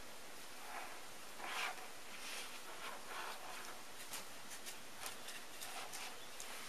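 Faint rustling and light handling noises, with a few small clicks in the second half, as hands tidy the bundle of thin balance wires on a battery pack.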